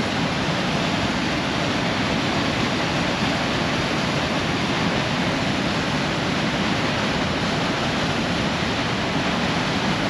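The American Falls at Niagara: a powerful, steady rush of falling water, even and unbroken throughout.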